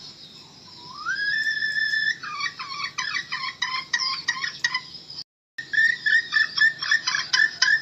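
Red junglefowl hen calling as a decoy: a drawn-out note that rises and holds about a second in, then rapid runs of short clucking notes, about five a second. A brief dead silence cuts in just past the middle.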